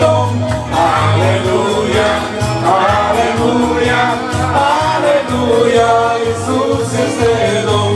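Worship song sung by men into handheld microphones, amplified through a PA loudspeaker over instrumental backing with a pulsing bass line.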